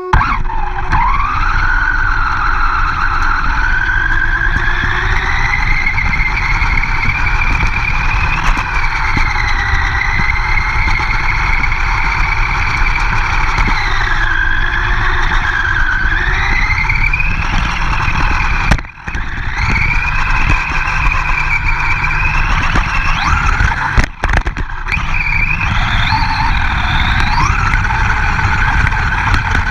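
RC monster truck's motor whining, its pitch rising and falling with the throttle, over heavy wind and tyre rumble on the camera riding on the truck. The sound cuts out sharply twice, briefly, in the second half.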